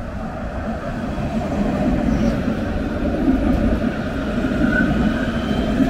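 Alstom Citadis tram passing along the platform without stopping, its running rumble growing louder as it comes alongside.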